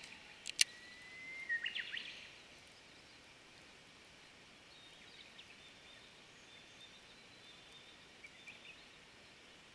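Shimano Scorpion 70 baitcasting reel engaged and worked just after a cast: two sharp clicks about half a second in, then a brief thin whine and a small cluster of clicks. After that, a quiet outdoor background with a faint high thin call.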